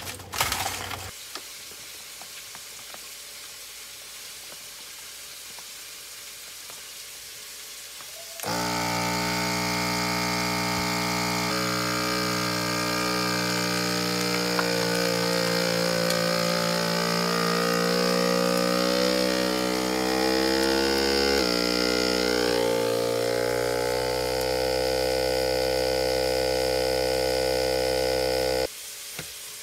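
Seal-a-Meal vacuum sealer's pump switching on about a third of the way in and running steadily for about twenty seconds, drawing the air out of a bag of frozen broccoli, its pitch wavering as the vacuum builds, then cutting off suddenly near the end.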